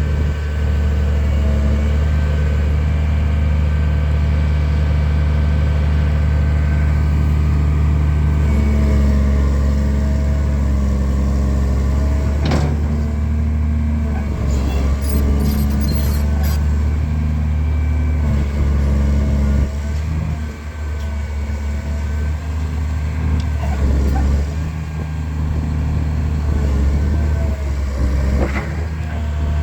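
Caterpillar 336D2 excavator's diesel engine running steadily while the machine moves, with sharp metal clanks about twelve seconds in and again near the end, and a brief hiss around fifteen seconds.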